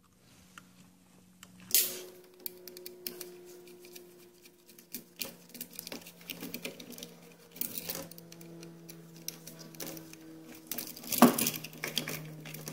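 Scattered light clicks and taps of copper wires and hand tools being handled at an electrical outlet box, with two sharper knocks, one about 2 seconds in and one about 11 seconds in. A steady low hum runs under them.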